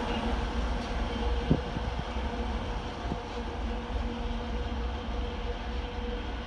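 ChME3T diesel shunting locomotive running light and moving away, its six-cylinder diesel engine droning with a steady low rumble and a held hum. A sharp clack from the wheels crossing a rail joint comes about a second and a half in, with a fainter one about a second and a half later.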